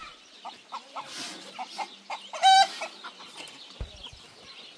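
Chickens clucking in short, separate notes, with one loud, clear squawk about halfway through.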